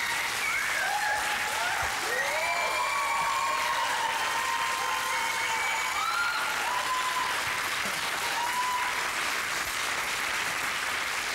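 Studio audience applauding steadily after a live song, with a few high calls rising over the clapping.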